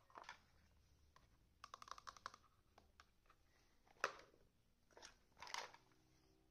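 Small plastic toy kitchen pieces handled and set down on a wooden floor: scattered light clicks and taps, a quick cluster about two seconds in, and louder knocks about four and five and a half seconds in.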